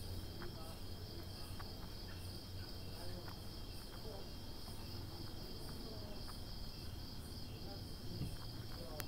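Night-time chorus of crickets and other insects: a continuous high trill with a regular pulsing chirp above it.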